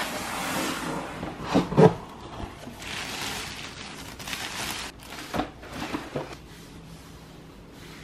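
Unpacking a bed table: the cardboard box is handled and its plastic wrapping rustles as it is pulled off, with a few sharp knocks as the box and table are moved.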